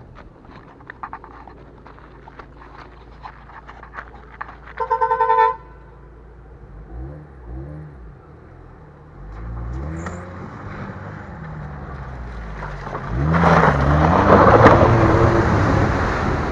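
A car horn sounds once for about a second. Then a car engine revs up and down in repeated swells, building to loud, hard revving in the last few seconds as the car tries to take a steep off-road climb.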